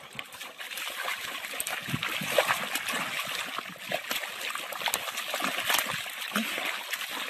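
A dog wallowing and rolling in a muddy puddle: irregular wet splashing of mud and water, louder from about two seconds in.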